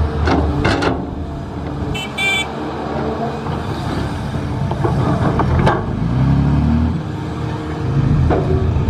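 Heavy vehicle engines running steadily, with a few sharp knocks, a short high-pitched toot about two seconds in, and an engine note that rises and falls around six seconds in.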